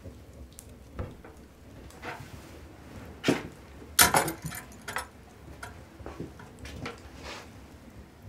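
Iron ring handle and latch of a wooden door clanking and rattling: a few light clicks, a sharp clack about three seconds in, then the loudest burst of rattling about a second later, followed by lighter clicks.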